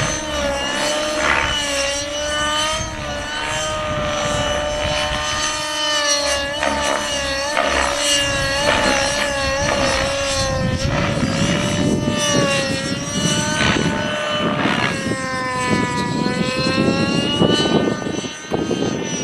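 Align T-Rex 600N nitro RC helicopter flying, its .55 glow engine and rotors giving a high whine that rises and falls in pitch as the throttle and pitch are worked, running on 30% nitro fuel. Wind buffets the microphone from about halfway through.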